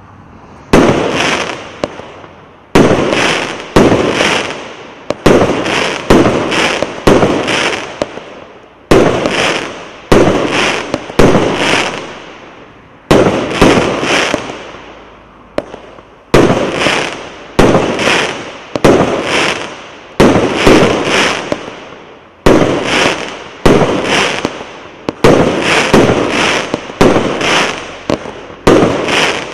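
A 1-inch, 25-shot fireworks cake firing its shots one after another, about one a second with some in quick pairs and triples, each a sharp bang that fades away over about a second.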